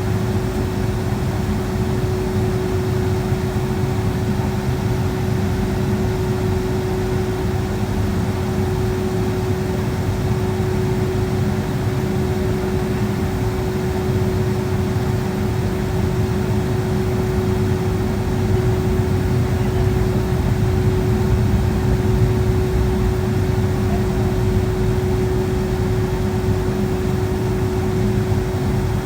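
Steady cabin noise in a Boeing 757-200 with its jet engines at low power before takeoff: an even rush of engine and cabin air with a constant mid-pitched hum.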